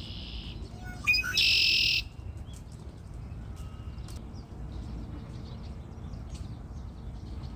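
A bird in a tree gives two harsh, raspy calls: a short one at the start and a louder, longer one about a second later. Faint ticks follow over a low background rumble.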